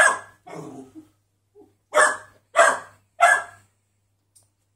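Puppy barking at a cat: a loud bark at the start, a couple of quieter barks after it, then three loud barks in quick succession from about two seconds in.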